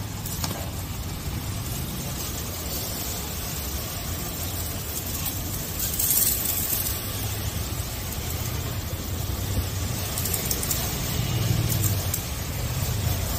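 Pressure-washer spray hissing as it rinses foam off a car, over the steady low hum of the washer's motor. The hiss briefly grows louder about six seconds in.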